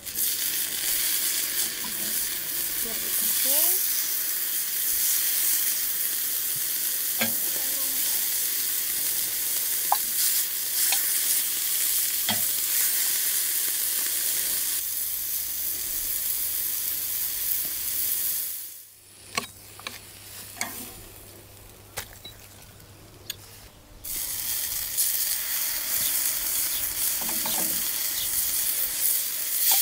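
Steak sizzling and crackling on a hot grill grate over charcoal, pressed down under old charcoal irons, with a few sharp clicks. The sizzle falls away for a few seconds past the middle, then starts up again.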